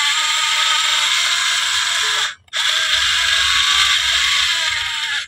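Yigong 11CH toy RC excavator's small electric motors and plastic gearboxes whirring as it drives forward on its tracks. The whir stops briefly about halfway, then starts again.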